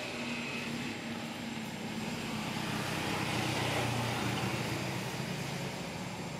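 A motor vehicle's engine humming steadily, growing louder about halfway through and easing off toward the end, over a steady background hiss.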